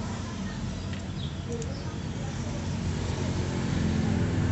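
Steady low hum of an engine running in the background.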